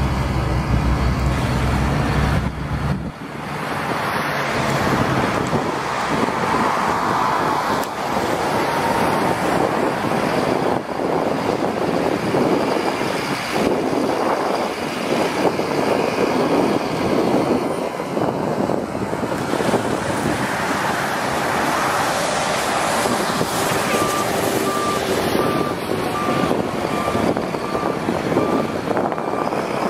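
Peterbilt box truck's diesel engine running as the truck drives across the yard, heavy and low for the first few seconds, then mostly a steady rushing noise. A faint regular beeping comes in near the end.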